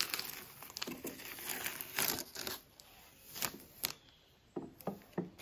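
Painter's tape being peeled off, a crackly tearing sound in several uneven pulls over the first three seconds or so, then a few faint light clicks near the end.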